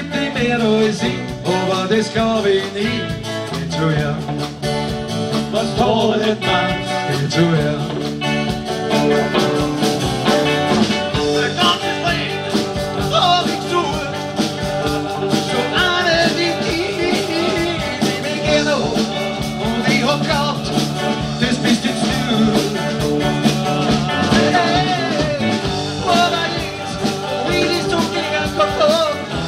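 Live band playing a song: a man singing lead over electric guitar, bass guitar and drums, with a steady beat.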